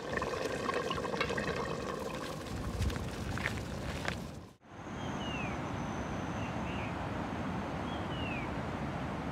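Steady rush of running water. After a cut about halfway through, a bird gives several short whistles that slide downward, over a faint steady high-pitched tone.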